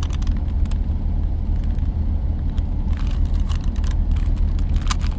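Rubik's cube being turned by hand, a few short plastic clicks from the twisting layers, more of them in the second half. Under them a steady low rumble.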